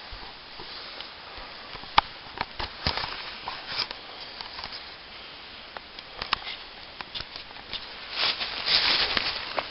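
Dry forest leaf litter and twigs crackling: a few scattered sharp snaps, then denser, louder rustling from about eight seconds in.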